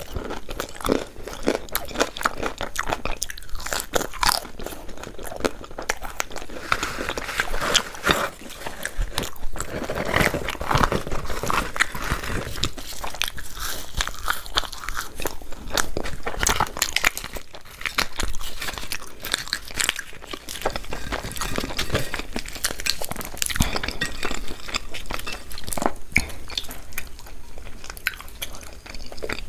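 Close-miked eating: a person biting and chewing food, with many sharp, irregular crunches.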